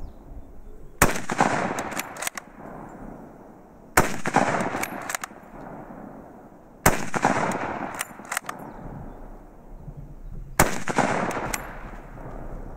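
Four shots from a Mauser K98k bolt-action rifle in 8mm Mauser, about three seconds apart, each with a second of echo. Short clicks come between the shots as the bolt is worked.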